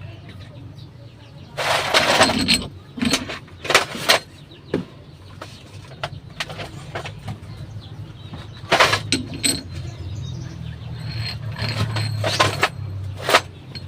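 Metal hand tools and cylinder-head bolts clinking and knocking against the engine while the head bolts are being fitted, in irregular sharp strokes over a steady low hum.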